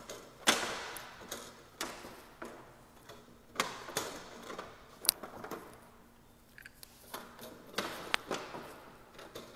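Plantation shutters being closed by hand: about a dozen sharp clacks and knocks at irregular intervals as the louvers tilt shut and the panels close, each ringing briefly in the room.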